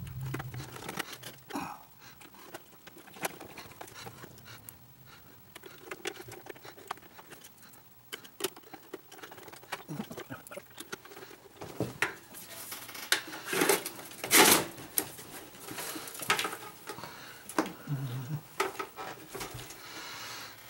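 Scattered clicks, taps and rubbing as a plastic-bottomed toaster and a screwdriver are handled on a bench, with a run of louder knocks and clatter about twelve to fifteen seconds in as the toaster is turned over and set down upright.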